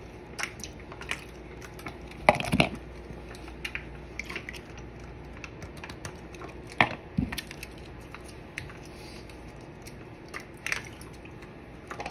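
Scattered sharp clicks and knocks of things being handled close to the microphone, the loudest a pair about two and a half seconds in and another near seven seconds in, over a low steady background.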